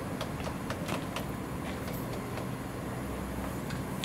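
Oil-fired, Japanese-built steam locomotive in steam, giving a steady low rumble and hiss with scattered light clicks.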